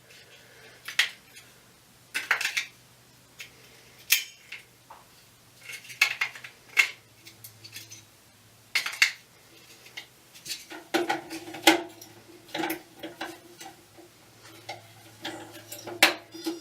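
Irregular sharp plastic clicks and clatters as batteries and the battery holder of a touchless toilet flush module are taken out, checked and reseated, with the snap of the module lid closing.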